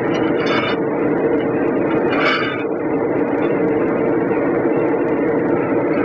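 A steady machine hum runs throughout, under a rag scrubbing over the inside of a steel mower wheel rim, with one brief harder scrub about two seconds in.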